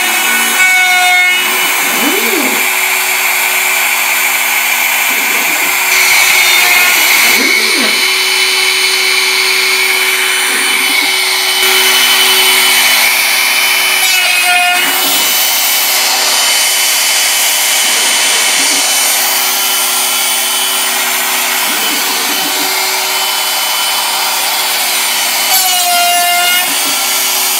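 Bosch Colt palm router on a CNC Mogul machine, its quarter-inch two-flute bit milling pockets in bamboo board: a steady high motor whine over cutting noise. The pitch dips and rises briefly a few times, near the middle and near the end.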